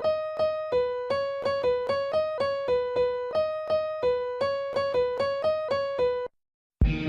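Electric piano playing a repeating two-note alarm-like figure, about three to four notes a second, as a musical imitation of an EAS alarm. It stops abruptly about six seconds in, and a fuller passage with strong beats starts just before the end.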